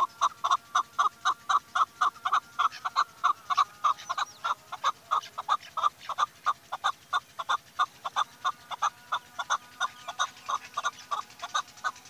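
Chukar partridge calling: a steady run of short, sharp 'chuk' notes, about four a second, without a break.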